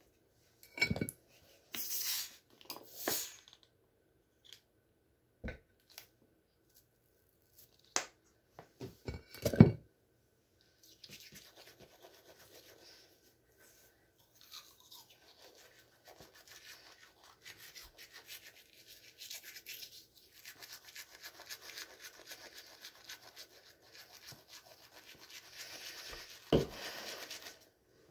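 A few separate clicks and knocks in the first ten seconds, then a manual toothbrush scrubbing teeth: a fast, scratchy brushing that goes on steadily from about eleven seconds in, with a louder knock near the end.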